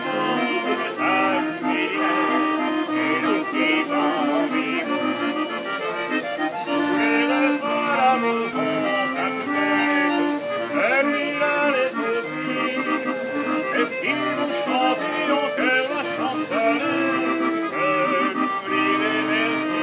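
Hand-cranked barrel organ playing a tune in held notes and chords, without a break.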